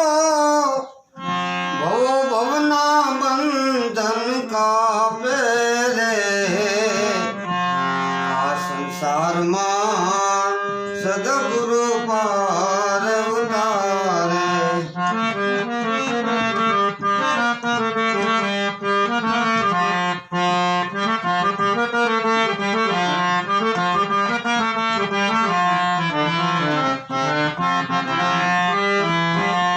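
Instrumental interlude of a Gujarati santvani bhajan: a reedy-toned melody instrument plays the tune, ornamented and gliding at first, then in steady repeated phrases over a regular percussion beat from about halfway through.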